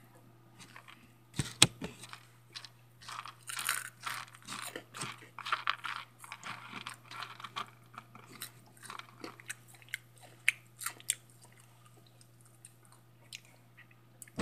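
A person crunching and chewing Hot Cheetos in irregular crisp bursts, busiest in the middle, with two sharp clicks about one and a half seconds in. A steady low hum runs underneath.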